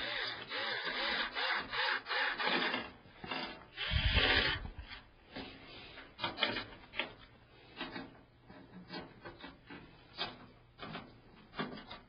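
A screwdriver driving screws into the back of a steel PC case to secure the motherboard tray: scraping and rubbing of metal on metal, then a loud knock about four seconds in and scattered small clicks and taps as the case is handled.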